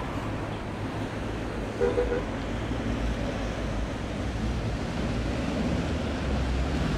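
Steady outdoor city noise of traffic, with wind rumbling on the microphone, growing slightly louder toward the end.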